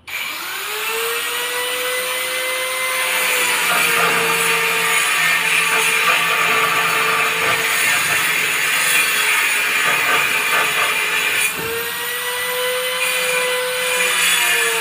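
Electric hand planer spinning up and shaving the edge of a wooden door that has swollen and sticks: the motor's pitch drops as the blade bites into the wood, with a hiss of shavings. Around twelve seconds in the motor pitch climbs back up as the cut eases, then settles again.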